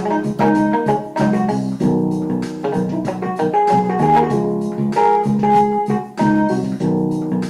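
Keyboard music, organ-like notes moving in a quick run of chords with no voice.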